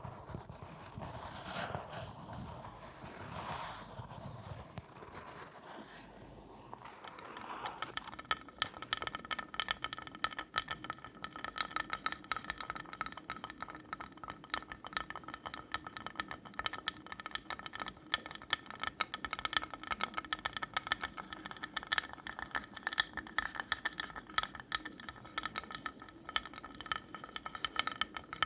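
Fingernails scratching softly for the first several seconds, then switching to very fast, continuous tapping on a hard object that rings with a few steady tones.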